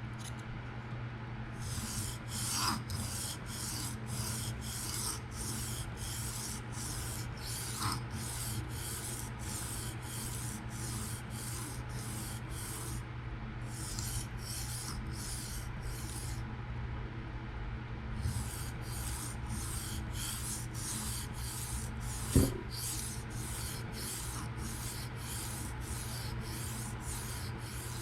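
Steel folding-knife blade in PM60 steel stroked freehand across a diamond sharpening stone: rhythmic scraping strokes, about two a second, with two short pauses. A single knock about 22 seconds in.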